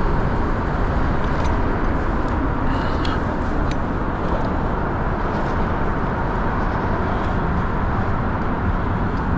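Steady rushing noise, with a few faint short ticks about three seconds in.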